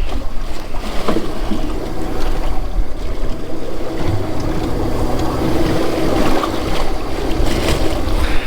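A boat's motor runs steadily with a constant low hum, under wind noise buffeting the microphone.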